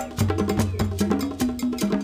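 Background music with a fast percussive beat and a repeating bass line.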